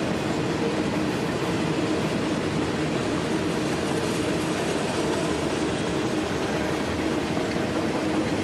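Train cars rolling past on the track, a steady rumbling rail noise with a faint underlying hum.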